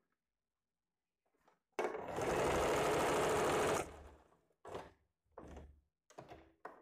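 Sewing machine stitching: one continuous run of about two seconds, then several short bursts of stitching.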